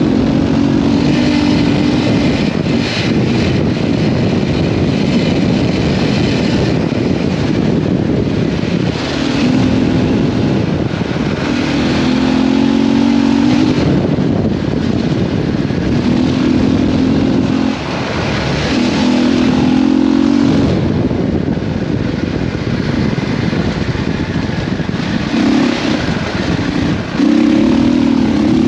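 KTM 640 Adventure's single-cylinder engine running hard under load on a dirt road, the throttle opening and closing again and again so the engine note swells in spells of a second or two, over steady wind and road noise.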